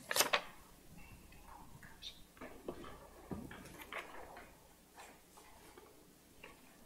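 Faint scattered clicks and light knocks of objects being handled at a wooden pulpit, the sharpest one just after the start.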